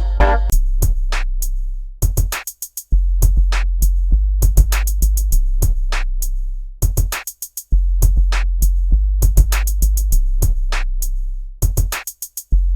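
Hip hop beat: a drum machine over a deep, sustained bass line, with the bass dropping out for short breaks about two, seven and twelve seconds in.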